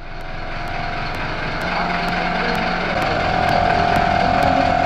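Portable electric tyre-inflator compressor running steadily as it pumps air into a car tyre, a continuous motor drone with a held tone.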